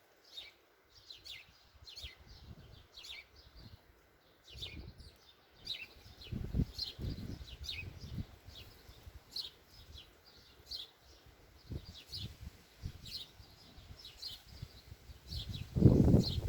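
Small birds chirping over and over in short high notes, with gusts of wind buffeting the microphone, strongest a little over halfway through and again near the end.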